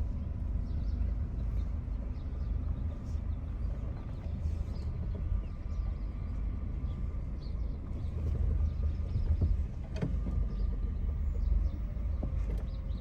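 2007 Honda Civic Hybrid's 1.3-litre four-cylinder running with a steady low rumble and a few light clicks, running smoothly after a Bar's Leaks engine repair treatment for misfires.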